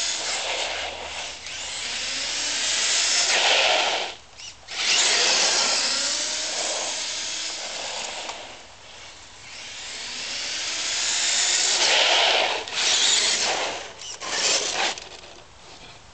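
Traxxas E-Revo RC truck's electric motor whining with tyre noise on asphalt, rising and falling in pitch as it speeds off and back several times. It drops out briefly about four seconds in, and ends with a few short bursts of throttle before fading.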